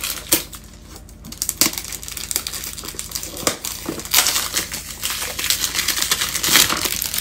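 Cardboard perfume box being handled and opened: a few sharp taps and clicks, then a longer stretch of crinkling and scraping from about four seconds in.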